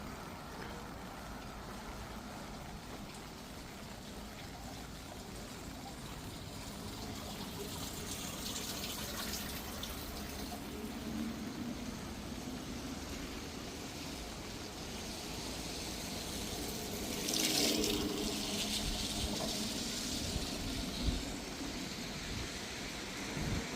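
Steady rain and wet-street noise, with two swells of hiss about nine and seventeen seconds in.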